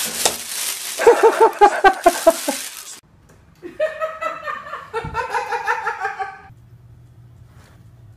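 A plastic bag crackling loudly as a cat bursts out of it, under a person laughing in a quick run of short bursts. After a brief break, another person laughs in a longer run of bursts, followed by a faint low hum.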